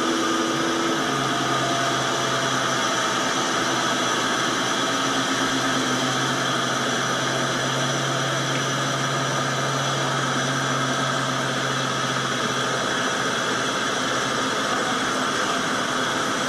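An engine running steadily under a constant hiss, with a low steady hum that drops out about three seconds before the end.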